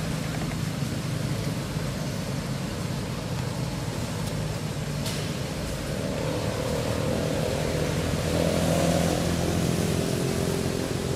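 Steady low hum of a motor vehicle's engine running, swelling louder for a few seconds in the second half.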